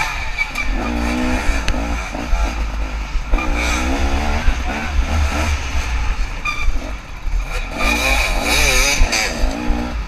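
KTM 300 two-stroke dirt bike engine revving up and down over and over as the throttle is worked, over a heavy low rumble.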